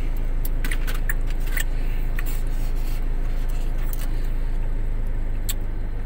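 Steady low hum of a car idling, heard from inside the cabin, with scattered light clicks and rattles of things being handled.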